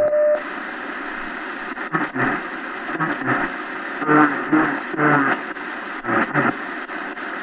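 Shortwave radio speaker carrying the WWV time-signal station: a steady tone with once-a-second ticks that stops just under half a second in. Then static hiss, with a faint voice coming and going through it.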